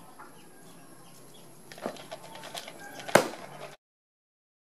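Birds' wings flapping briefly: two sharp flaps, the louder one about three seconds in, with light scuffling between them. The sound then cuts off to dead silence.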